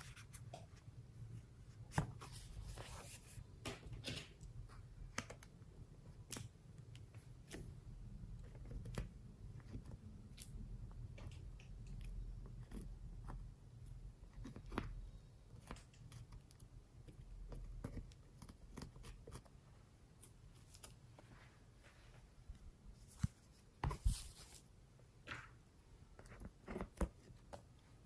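Small makeup brush scraping over pressed eyeshadow and glitter in a palette and dabbing onto slime, heard as scattered light scratches and clicks over a low hum, with a few sharper taps near the end.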